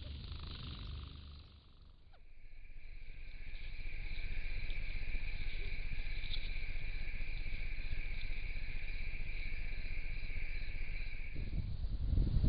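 Crickets trilling in a steady night chorus, a continuous high-pitched drone that starts about two seconds in and stops shortly before the end. A low rumbling noise rises at the very end.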